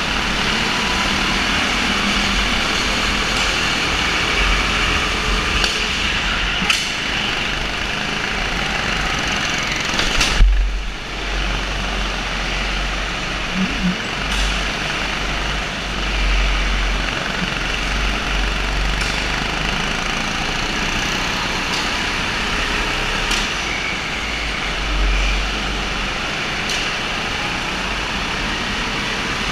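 Go-kart engine running through a race, a steady mechanical drone with a few short clicks and one loud knock about ten seconds in, after which a low rumble comes and goes.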